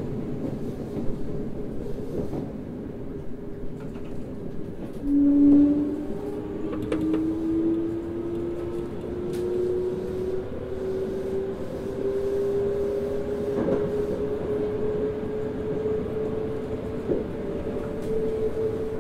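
Toei 5300 series subway train from inside the car, running through the tunnel: steady rumble of wheels on rail with a few sharp clicks. About five seconds in, the traction motor whine starts and rises slowly and steadily in pitch as the train picks up speed.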